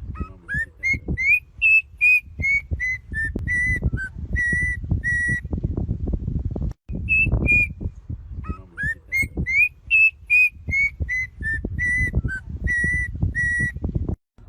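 A bird whistling a phrase of clear notes, several gliding upward and the rest held level, sung twice with a short break between. Underneath runs a low rumbling noise with scattered knocks.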